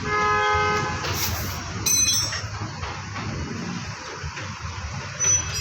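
Traffic and workshop background noise, with a vehicle horn sounding for about a second and a half at the start and a sharp metallic clink about two seconds in.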